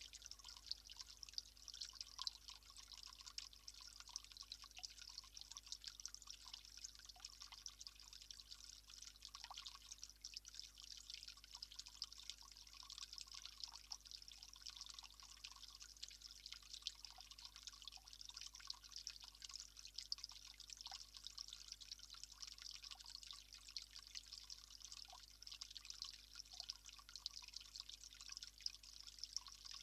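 Faint, steady trickle of water with many small scattered ticks and drips throughout.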